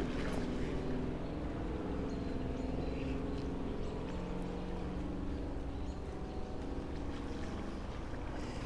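A steady low drone runs over the noise of shallow river water flowing over rocks.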